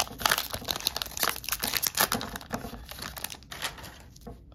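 Foil wrapper of a Pokémon 151 booster pack crinkling as it is torn open: a dense run of crackles that thins out after about three seconds.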